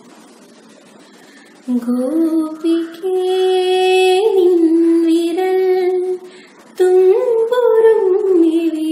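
A young woman singing solo without accompaniment. After a short pause she sings long held notes with slow bends in pitch, breaks off briefly about six seconds in, then takes up the phrase again.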